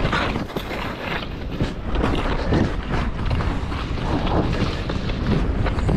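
Wind buffeting the microphone of a camera worn by a skier skiing downhill, with the skis scraping and carving over packed snow.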